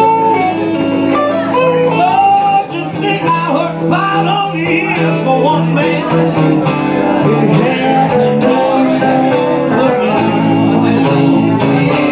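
Live blues performance: a woman singing into a microphone over guitars.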